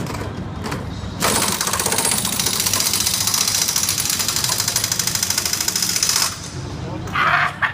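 Pneumatic impact wrench (air gun) hammering on a car's wheel nut: one rapid rattling burst of about five seconds, starting about a second in and cutting off suddenly.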